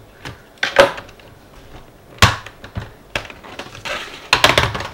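Plastic latches of an Asus X541UA laptop's keyboard deck clicking and snapping as the deck is worked with a screwdriver and pressed by hand. There are single sharp clicks about a second and about two seconds in, then a quick cluster of clicks near the end.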